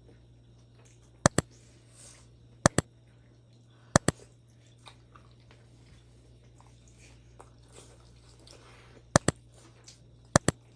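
A person eating a chicken momo close to the microphone: faint chewing between five pairs of sharp, loud clicks spaced a second or more apart.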